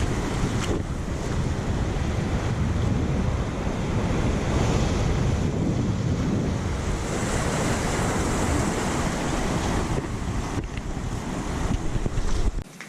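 Sea waves surging, with strong wind buffeting the microphone; the sound cuts off abruptly near the end.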